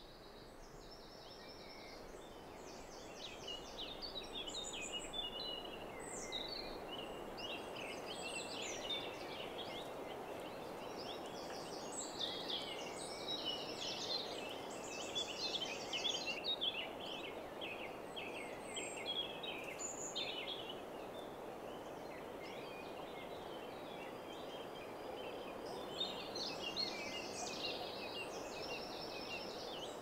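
Many songbirds singing at once, overlapping chirps, warbles and fast repeated-note trills, over a steady low rushing background. It grows louder over the first few seconds.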